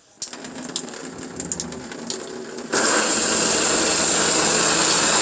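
A few clicks and knocks, then about two and a half seconds in the Oxygenics shower head's spray comes on suddenly and runs as a steady, loud, high hiss of water.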